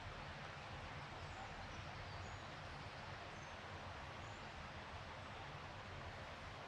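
Faint, steady forest ambience: an even hiss, with a handful of brief, high bird chirps scattered through it.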